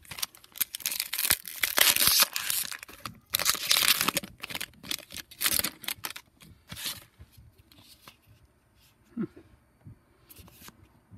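Foil booster pack wrapper being torn open and crinkled in hand, in loud crackling bursts over the first six or seven seconds. It then gives way to quieter handling of the cards, with one short rustle near the end.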